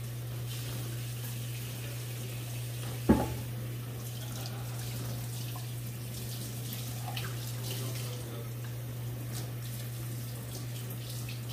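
Water from a kitchen faucet running steadily onto a bamboo cutting board in a stainless steel sink as the board is rinsed. There is a single sharp knock about three seconds in.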